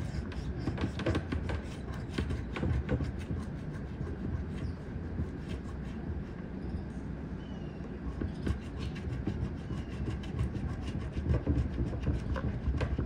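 A coin scratching the coating off a scratch-off lottery ticket: quick, rhythmic scraping strokes that ease off in the middle and pick up again toward the end.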